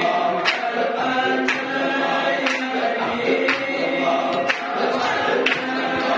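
A group of men chanting Samman dhikr together, with sharp hand claps about once a second marking the rhythm.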